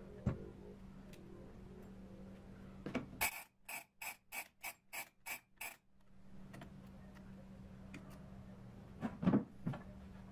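Clockwork mechanism of a Hasler Bern railway speedometer ticking, a short run of about eight even ticks at roughly three a second, between a few handling clicks and knocks on the metal works.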